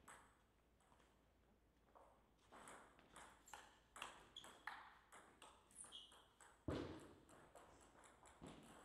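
Table tennis rally: a celluloid-type ball clicking off bats and the table in a quick run of sharp pings, ending in a louder dull thump about seven seconds in as the point ends.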